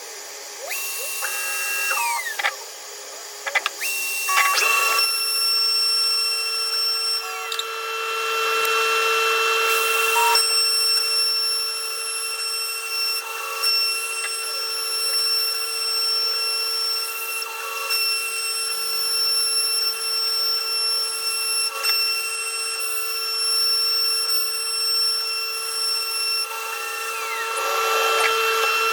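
CNC router spindle running with a steady high-pitched whine over a rasping cutting noise. It starts and stops briefly in the first few seconds, then runs without pause.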